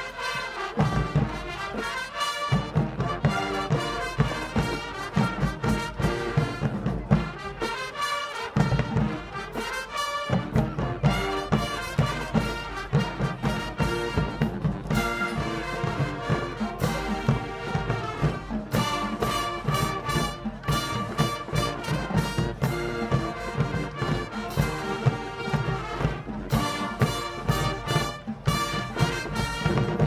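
Marching band playing with full brass and percussion, horns carrying the tune over a steady drum beat; the bass and drums drop out for about two seconds around nine seconds in.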